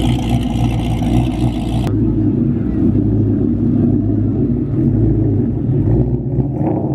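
Low, steady V8 exhaust rumble of cars rolling slowly past at idle: first a drag-prepped Chevrolet Camaro, then, after an abrupt change about two seconds in, a Ford Mustang GT.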